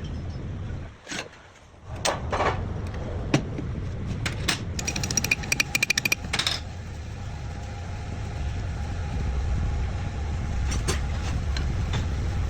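Metal parts and tools clinking and knocking during work on a starter motor, with a quick rattling run of metallic clicks midway, over a steady low rumble of engines running.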